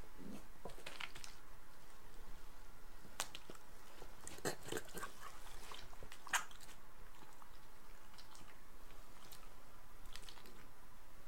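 Shiba Inu dogs chewing pieces of cooked ribeye steak: irregular sharp clicks and smacks of teeth and jaws.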